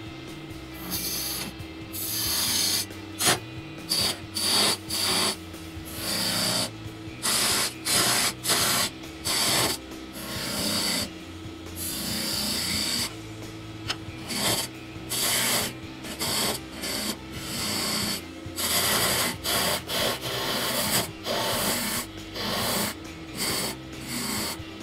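Wood lathe running with a steady hum while a tool or abrasive is pressed against the spinning wood again and again in short scraping passes.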